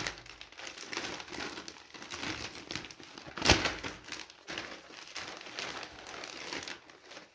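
White plastic mailer bag crinkling and rustling as hands handle and open it, with one sharp, louder crackle about three and a half seconds in.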